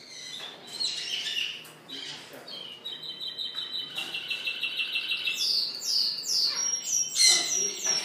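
Male Spanish Timbrado canary singing. Scattered chirps give way about three seconds in to a fast, even trill, then a run of falling whistled notes, and near the end a louder rapid trill.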